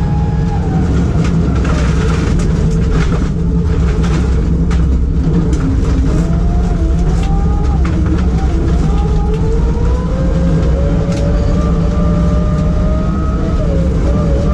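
BMW E46 Compact rally car heard from inside the cabin at speed: the engine note drops about a second in, then climbs slowly through the second half. Gravel clicks and rattles against the car's underside in the first few seconds.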